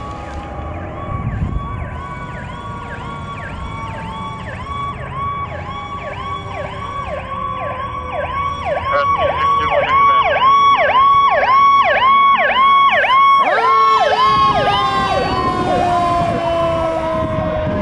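Fire truck siren on a fast yelp, with a second siren tone sliding slowly down in pitch underneath. The yelp grows louder as the truck approaches, then drops in pitch about fourteen seconds in as it passes.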